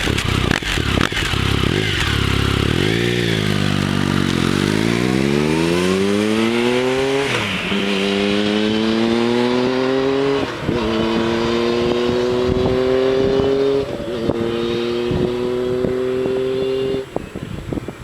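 Triumph Tiger 1050's three-cylinder engine breathing through a TOR aftermarket muffler: it idles with a quick rev, then pulls away hard, rising in pitch through the gears with three quick upshifts. The throttle is closed near the end.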